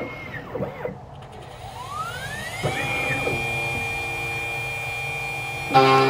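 Electronic key code-cutting machine's cutter motor spinning up with a rising whine that levels off into a steady tone, cutting a key blank to code. Near the end the sound jumps louder, with a deeper steady hum.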